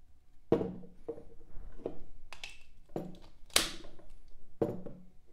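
Plastic wall-socket faceplates and plugs being handled, a series of short clacks and scrapes, about seven in all, the loudest a sharp clack about three and a half seconds in.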